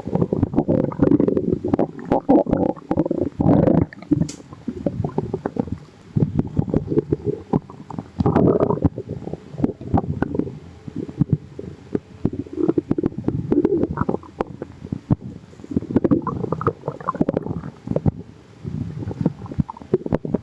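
Human stomach growling and gurgling, bubbly, in irregular bursts of many quick pops and rumbles with short lulls between.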